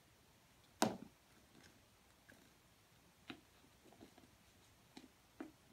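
A kitten playing with a toy mouse: one sharp knock about a second in, then a few faint, scattered taps.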